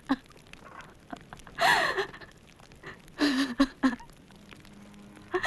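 A woman's distressed crying: a breathy cry falling in pitch about a second and a half in, then a short sobbing wail about three seconds in.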